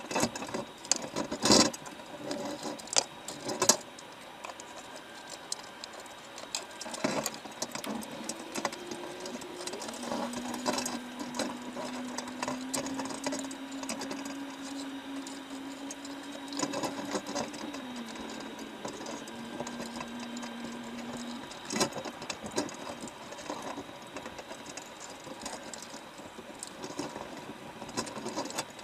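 Underwater sound inside a baited crab trap: a steady hiss with scattered sharp clicks and knocks, several of them loud in the first few seconds. From about 8 s to 21 s a low engine-like drone comes in, rises slightly in pitch, holds, then drops and stops.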